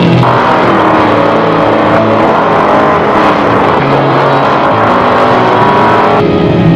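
Off-road trophy truck engine racing at high revs, its pitch rising and falling as it drives.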